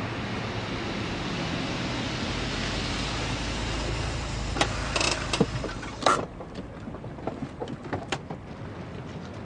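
Steady rush of water and wind with a low rumble underneath, broken by a few sharp knocks and clicks. About six seconds in the rushing cuts off, and scattered light clicks and taps follow.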